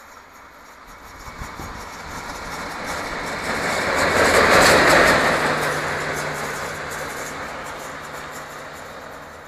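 A DR V60 (class 346) diesel shunting locomotive running light through a station. It grows louder as it approaches, passes close about halfway through with wheel clicks over the rail joints, then fades as it runs off, its engine drone holding on one steady note.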